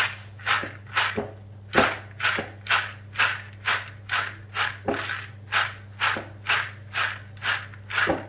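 Fried peanuts being tossed in a red plastic colander to mix in fried shallots: a rhythmic rattling swish of nuts against the plastic, about two tosses a second, over a steady low hum.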